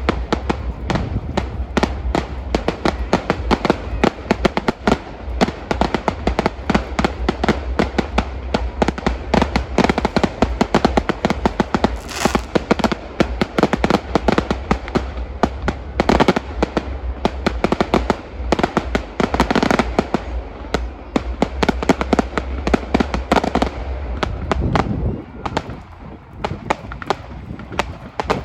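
Fireworks display going off in a dense, continuous barrage of bangs and crackling, with a low rumble underneath that stops near the end.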